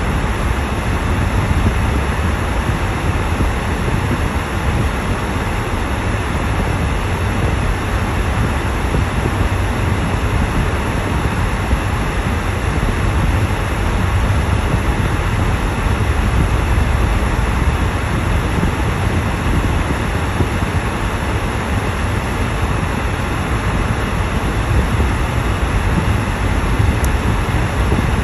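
Steady road noise heard inside a moving car's cabin: tyres rolling over a snow-covered road with the engine running, an even deep rumble with a hiss on top.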